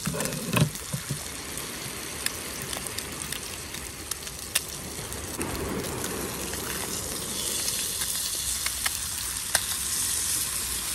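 Whiting fillets frying in oil in a pan, a steady sizzle with scattered sharp crackles of spitting fat; the sizzle grows louder about seven seconds in.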